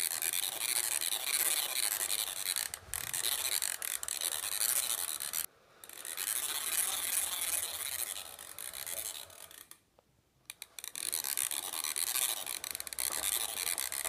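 1981 Kertoy push-along toy vacuum cleaner being pushed, its battery-free mechanism making a continuous rasping whirr. It breaks off briefly about five and a half seconds in and for about a second near ten seconds, then starts again.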